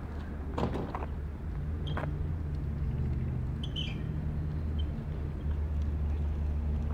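Steady low rumble of an idling engine, with a few light clicks in the first two seconds and a brief high chirp near the middle.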